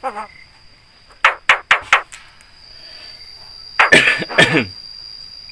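Javan myna giving four quick, sharp calls about a second in, then a louder, rasping cough-like sound near four seconds: the bird mimicking a human cough.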